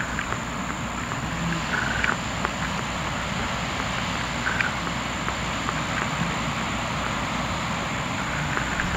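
Steady outdoor rushing of wind and ocean surf on the microphone, with a few short, faint chirps from a small animal about two and four and a half seconds in.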